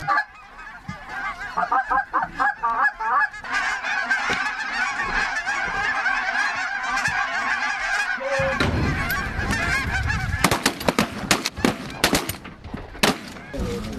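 A large flock of geese, many of them snow geese, calling overhead: scattered honks at first, swelling after a few seconds into a dense, continuous chorus. In the last few seconds a run of sharp clicks and knocks sounds over the calling.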